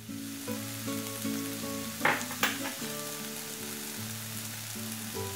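Chopped onions, ginger and garlic sizzling in hot oil in a non-stick pan, a steady frying hiss. Two short knocks come about two seconds in, and soft background music plays throughout.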